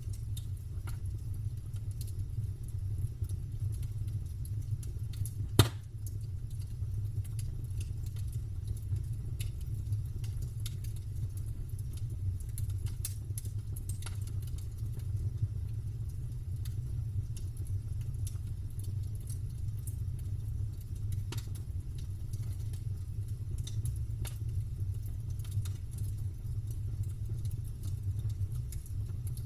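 Campfire crackling: scattered small pops and snaps from burning wood, with one loud pop about five and a half seconds in, over a steady low rumble.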